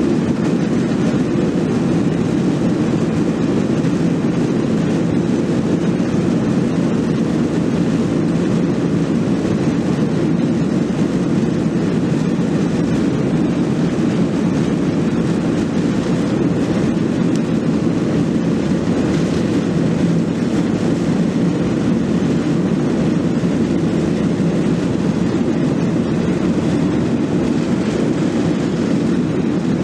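Steady, loud rumble of a Boeing 737-700 and its CFM56-7B engines, heard from inside the passenger cabin, unchanging throughout.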